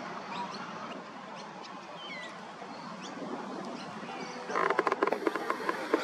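Eurasian coots calling over a steady background hiss: faint high chirps at first, then about four and a half seconds in a quick run of loud, harsh calls.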